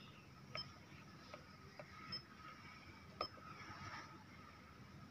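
A handful of light clicks from the RigExpert AA-600 antenna analyzer's buttons being pressed, about five at irregular intervals, over faint background hiss.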